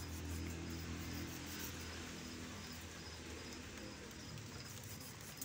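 An insect, cricket-like, chirping high and evenly over a steady low hum that fades after about two seconds.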